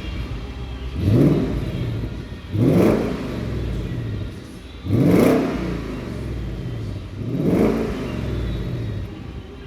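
Car engine revved four times, about every two and a half seconds, each rev climbing quickly in pitch and falling back to a steady idle between.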